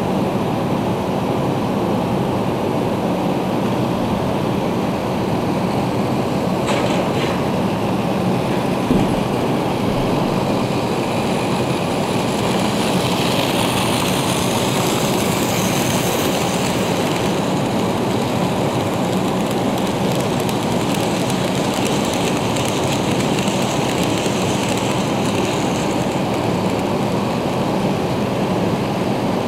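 N scale model train running on the layout track: a steady rushing whir that gets brighter for several seconds in the middle as the locomotive passes close by, with a couple of faint clicks about seven seconds in.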